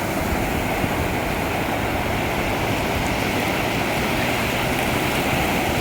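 Ocean waves washing onto the shore, a steady rush of surf without distinct breaks.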